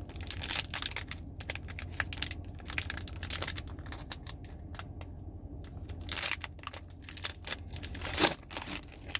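Foil wrapper of a Pokémon card booster pack being torn open and crinkled, a steady run of short crackles and rustles.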